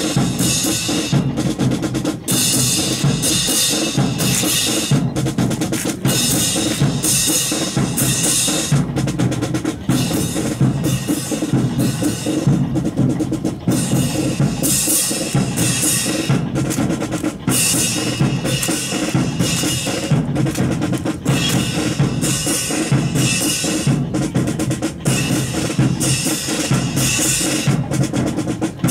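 Drum cadence of snare and bass drum keeping a steady marching beat, with rolls, to pace the drill team's marching.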